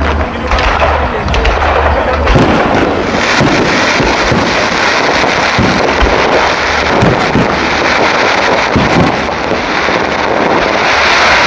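Fireworks display: many aerial shells bursting in quick, overlapping succession over a continuous dense crackle, with low booms among them.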